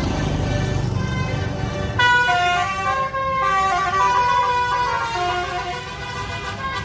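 Bus 'telolet' multi-tone horn playing a short tune of held notes, starting about two seconds in, over the low rumble of a bus engine.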